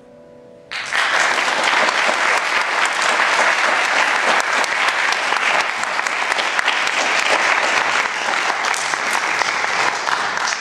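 The last notes of a Steinway grand piano die away, then audience applause breaks out under a second in and carries on steadily.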